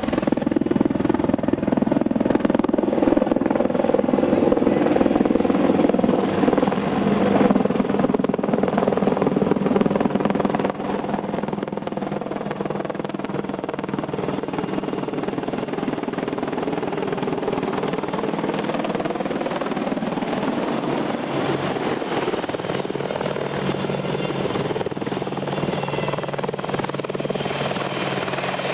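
AH-64 Apache attack helicopter running: rapid beat of the rotor blades over the whine of its twin turboshaft engines, with the pitch sliding up and down. About ten seconds in the sound drops suddenly to a steadier, quieter rotor and engine sound.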